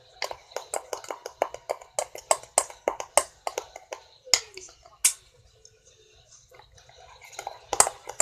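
Sticky homemade slime being squeezed and pulled by hand, giving rapid wet clicks and pops about four or five a second, which thin out after about five seconds before a few louder pops near the end. The slime is still too sticky to stretch.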